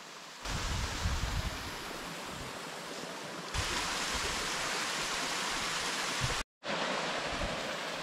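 Hell's Hollow Falls, a small waterfall, splashing steadily into a creek pool with an even rush of water. The sound jumps louder about half a second in and again about three and a half seconds in, and drops out briefly about six and a half seconds in.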